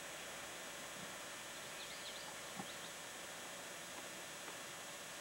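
Steady recording hiss with a few faint, quick high chirps from a small bird about two seconds in, and a soft knock shortly after.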